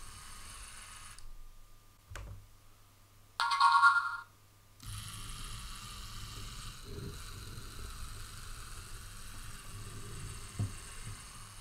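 LEGO Mindstorms EV3 robot's motors whirring steadily as it drives along a line, stopping about a second in. A loud, short electronic tone sounds a little over three seconds in, and the motors start up again near five seconds and run on.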